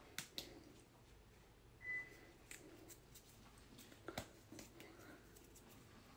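Near silence with faint clicks and taps from hands and mouth moving while signing, and one short, steady high beep about two seconds in.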